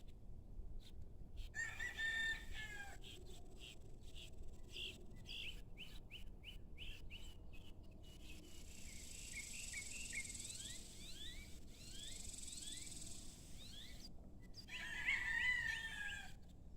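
A rooster crowing twice, once about two seconds in and again near the end, each crow ending on a falling note. Small birds chirp in between, over a steady high insect hiss.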